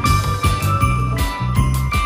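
Background music with jingling bells over a bass line and a steady beat.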